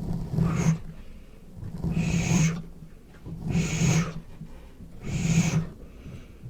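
Slow, rhythmic breathing close to the microphone, with about one breath every second and a half to two seconds.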